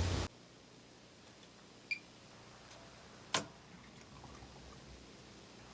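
Washing machine being started: a single short electronic beep from its control panel, then a sharp click about a second and a half later, with near silence around them.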